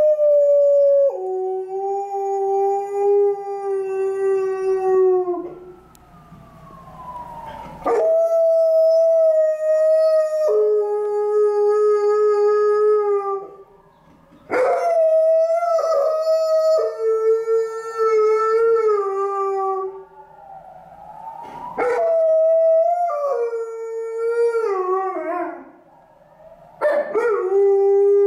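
Alaskan Malamute howling in a stairwell: about five long howls with short breaths between them, each held on a higher note and then stepping down to a lower one.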